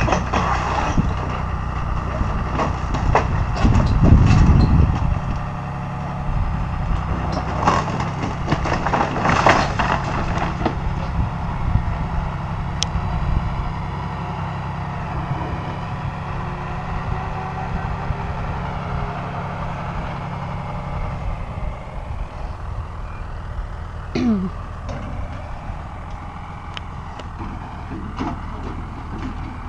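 A vehicle engine running steadily while the wooden framing of a small building cracks and splinters as it is pulled apart, in several loud bursts in the first ten seconds or so. The engine hum drops lower after about twenty seconds.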